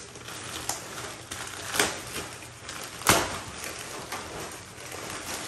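Thick black plastic wrapping rustling and crinkling as it is handled and pulled open, with two sharp crackles about two and three seconds in, the second the loudest.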